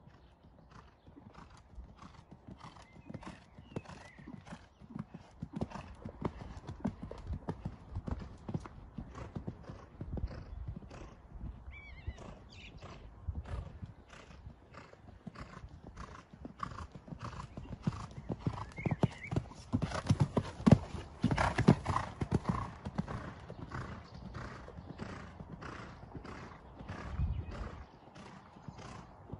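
Horse cantering loose on a sand arena: a steady rhythm of muffled hoofbeats on the sand, getting louder about two-thirds of the way through as it passes close.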